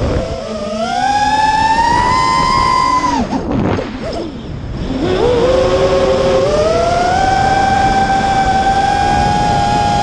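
Dark Max FPV quadcopter's electric motors whining with the throttle. The pitch climbs over the first three seconds, then drops and fades as the throttle is cut. From about five seconds in it rises again and holds steady.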